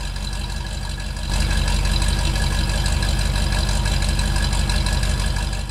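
Pickup truck engine sound effect running steadily, growing louder and deeper about a second in.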